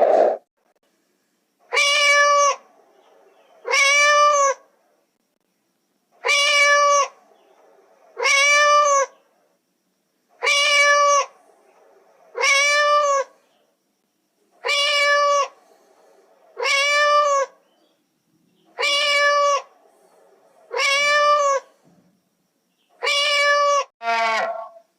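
A cat meowing over and over: about eleven near-identical calls, each under a second, pitch rising then falling, about two seconds apart, with a shorter falling call near the end.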